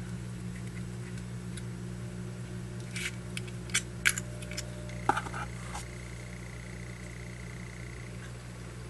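Faint clicks and rustles of stuffing being packed by hand into a Zippo lighter's metal insert, a few scattered light taps through the middle, over a steady low electrical hum.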